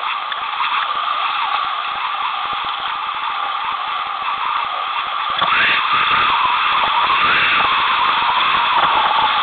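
Whitewater rapids rushing over rocks in a steady wash of water noise, getting louder about five and a half seconds in.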